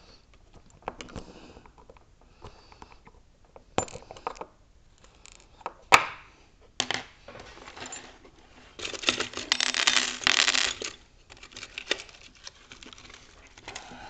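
Brass lock cylinder and metal picks handled and set down on a wooden tabletop: scattered clicks and knocks, a sharp knock about six seconds in, then about two seconds of rattling, jangling clatter.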